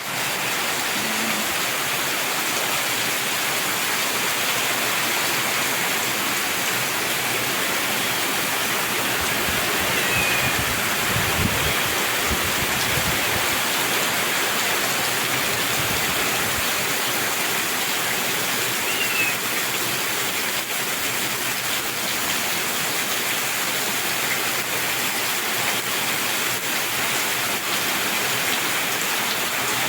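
Rain pouring down steadily, an even, unbroken hiss of a heavy downpour.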